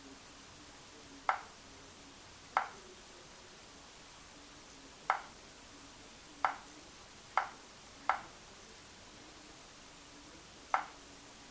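Seven short, sharp clicks at irregular spacing, from taps on a smartphone's touchscreen while its settings menus are navigated.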